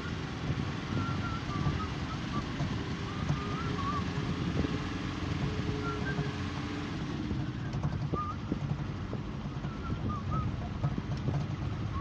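A vehicle driving: steady low engine and road rumble with wind noise, a few light knocks in the second half, and scattered brief high squeaks.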